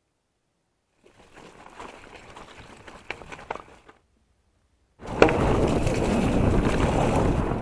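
Mountain bike riding fast down a dirt forest trail: tyres rolling over the ground and wind on the handlebar camera's microphone make a loud, steady rushing noise that starts suddenly about five seconds in. Before it, after a second of silence, come a few seconds of faint rustling with scattered light clicks.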